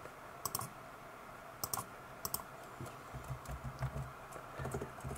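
A few faint, scattered keystrokes on a computer keyboard as a short string of letters is typed, followed by a low rumble in the second half.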